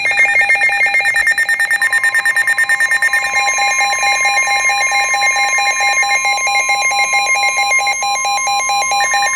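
Weather radio warning alert: a loud electronic alarm pulsing rapidly, about ten beeps a second. About two seconds in, a steady single alarm tone near 1 kHz joins it, which is the NOAA Weather Radio warning alarm tone.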